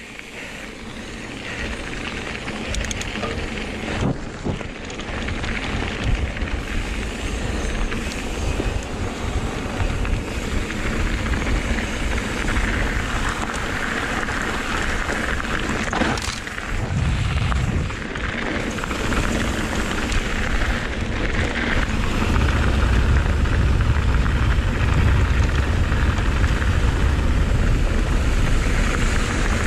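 Wind buffeting the microphone and mountain bike tyres rolling fast over a dirt trail during a descent, with a couple of sharp knocks from the bike, the wind rumble growing heavier in the last few seconds.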